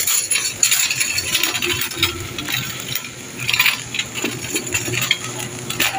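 Handheld plastic shopping basket and its contents jostling with each step: irregular light clinks and rattles over a low steady hum.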